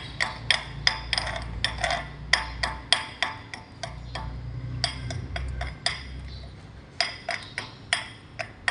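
A hammer striking steel in runs of quick, ringing metallic blows, about two to three a second, with short pauses between the runs. A steady low rumble runs underneath.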